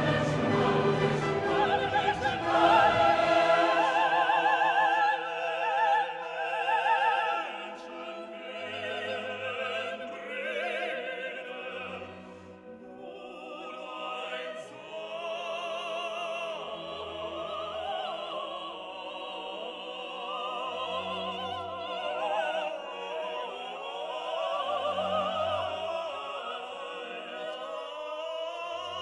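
Background music: operatic classical singing with orchestra, the voices wavering with vibrato, louder in the first few seconds and softer after.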